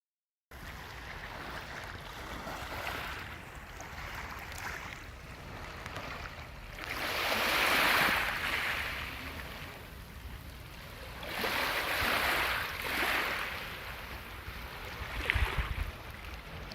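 Sea waves washing in at a harbour edge, with two larger surges that swell and fade about halfway through and again later. Low wind rumble on the microphone runs underneath. A few sharp knocks come near the end.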